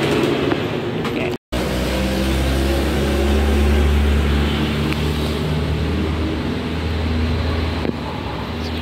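A motor vehicle's engine running with a steady low drone that is strongest in the middle, after the sound cuts out for a moment about a second and a half in.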